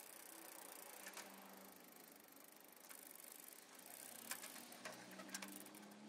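Faint hiss with a few scattered clicks and pops, like the surface noise of a vinyl record, with faint low held notes coming in near the end.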